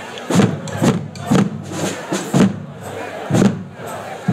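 Drums of a marching music corps beating strong strokes in an uneven pattern, about two a second, over steady crowd chatter.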